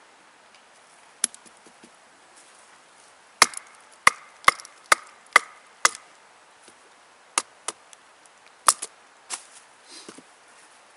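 Wooden baton knocking on the spine of a Bark River Sahara knife, batoning it down to split a long stave of wood. Sharp knocks: one early, then a quick run of six about half a second apart, then a few more, spaced out.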